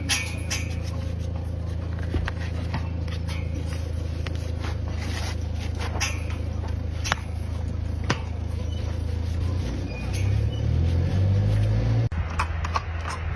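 A steady low mechanical hum, like a running motor, with scattered clicks and scrapes over it. The hum swells louder about ten seconds in and breaks off suddenly about twelve seconds in.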